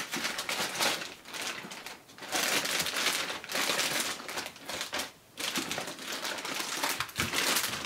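Clear plastic packaging bag crinkling and rustling as hands pull a boxed server out of it, uneven, with short pauses about two and about five seconds in.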